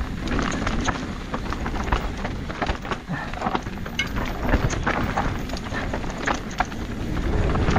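Mountain bike riding down a rough dirt trail: tyres crunching over stones and roots while the bike clatters and rattles in quick irregular knocks, over a steady low rumble.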